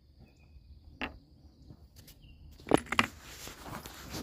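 A faint, steady high insect drone under a sharp click of handling about a second in. Footsteps start crunching on gravel near the end as the camera is carried off.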